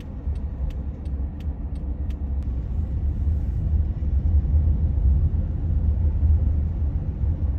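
Road and engine noise inside a minivan's cabin while driving: a steady low rumble that grows louder about halfway through. For the first couple of seconds it comes with a light, regular ticking like a turn signal.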